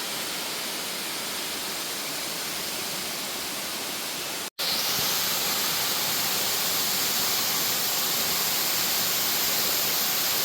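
A waterfall pouring over a rock face, a steady rushing of water. About four and a half seconds in there is an abrupt cut, after which the rushing is louder and brighter.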